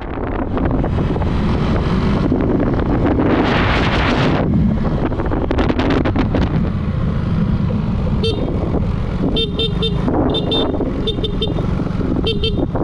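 Motor scooter riding along, its engine and road noise running steadily, with wind rushing over the microphone in the first few seconds. From about eight seconds in, a scooter horn beeps in quick short toots, several times in a row.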